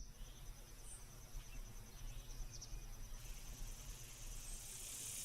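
Faint woodland ambience: an insect trilling in a high, evenly pulsing tone over a low rumble, with a couple of faint high chirps.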